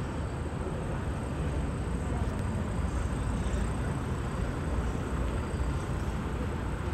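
Steady low rumble of outdoor background noise, even throughout, with no distinct events.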